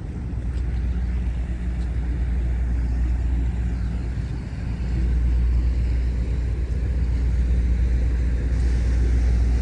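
An engine running with a steady low drone, with rushing noise on top; it grows a little louder about halfway through.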